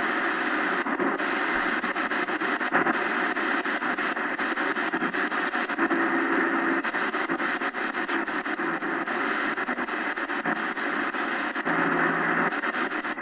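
Shortwave static and hiss from the XHDATA D-901's speaker as it tunes across the band, with fine crackling and two short steady tones, one about six seconds in and one near the end.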